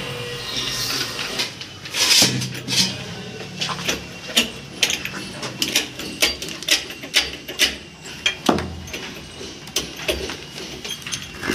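Repeated sharp knocks and clinks as a 6-inch reinforced-concrete core is worked out of a steel core drill bit and handled on a concrete floor. The knocks are irregular, about one or two a second.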